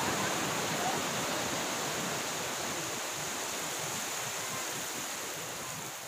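Steady, even rushing of running water, slowly fading a little in level.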